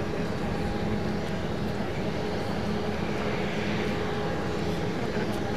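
Steady drone of an Airbus A380's four Rolls-Royce Trent 900 engines on landing approach, with a few held tones over an even rumble.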